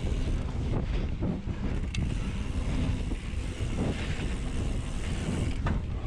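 Wind buffeting the microphone of an action camera on a mountain bike descending a dirt singletrack at about 20–27 km/h, over the steady rumble of the tyres on the trail. Two sharp clicks from the bike, one about two seconds in and one near the end.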